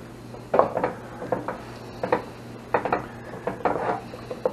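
Wooden spatula stirring cheese sauce and chopped bacon in a stainless steel stock pot: irregular knocks and scrapes against the pot.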